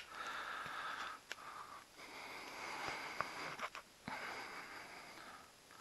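A person's breathing close to the microphone: three long, hissy breaths with short pauses between them, and a few faint clicks.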